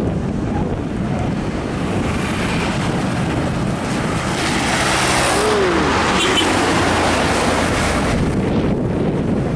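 Heavy road traffic passing close by: concrete mixer trucks' diesel engines running, with motorcycles among them. A rushing tyre noise swells about halfway through as a vehicle goes past, over wind noise on the microphone.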